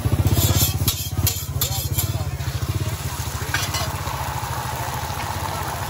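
A small engine running steadily at idle close by, a low, rapidly pulsing hum, with a few sharp clicks in the first couple of seconds.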